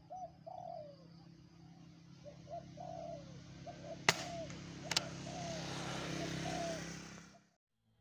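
Spotted doves cooing in short, repeated falling calls. About four seconds in comes a sharp crack from a Sharp Pegasus Erthes multi-pump air rifle firing, pumped seven times, and under a second later a second sharp click. A rising rustling noise follows and cuts off suddenly near the end.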